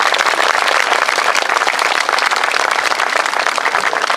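Crowd of a few dozen people applauding, a dense and steady patter of clapping hands.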